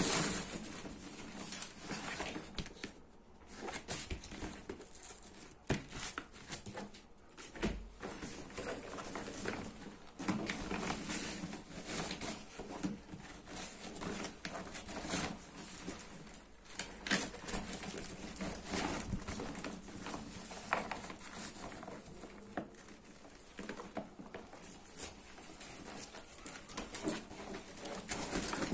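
A square insulated delivery backpack being handled and opened: its fabric and foil-lined walls rustle and crinkle, with many irregular small knocks and clicks as the panels and straps move.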